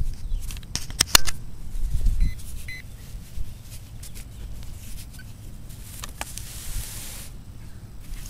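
A gloved hand rummaging and scraping through loose soil in a freshly dug hole, with a few sharp clicks about a second in, over a low rumble.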